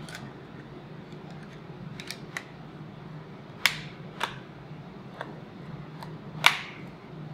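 Hard plastic clicks and snaps of a Griffin Survivor + Catalyst waterproof iPhone case being fitted and pressed together in the hands: about eight short sharp clicks, the two loudest about three and a half and six and a half seconds in.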